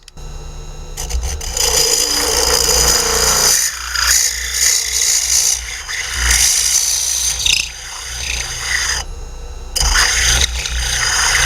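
Power drill with a large bit boring into a poplar dowel: a steady motor hum under rough, uneven wood-cutting noise. The cutting stops for a moment about nine seconds in while the motor keeps running, then bites again.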